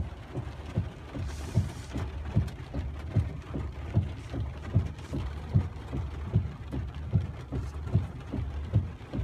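Inside a truck cab while driving in the rain: a steady low engine and road rumble with a soft, regular thump about every 0.8 seconds from the windshield wipers.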